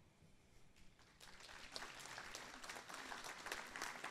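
Audience applauding: many hands clapping, faint at first and filling in about a second in.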